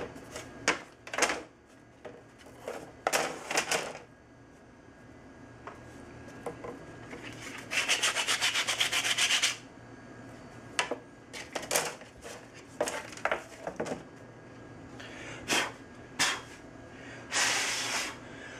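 An 80-grit sanding belt held in the hand and rubbed over the edges of laser-cut plywood, taking off rough, flaking edges. It comes as separate short strokes, with a run of fast back-and-forth scrubbing about eight seconds in and another long stroke near the end.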